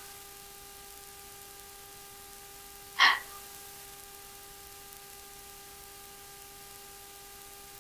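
Quiet room tone with a faint, steady electrical hum, broken about three seconds in by one short, sharp breath.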